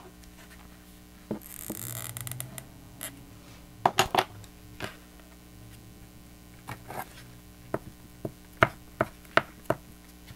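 Scattered light taps and clicks, with a brief rustle about two seconds in: cardstock and seam binding ribbon being handled and pressed down while hot-gluing the closure of a paper book box.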